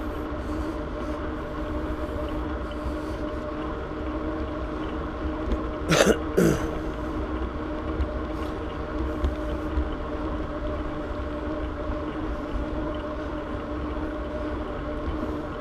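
Bicycle rolling along a paved trail: a steady hum and low wind rumble on the camera microphone. About six seconds in come two short loud sounds half a second apart.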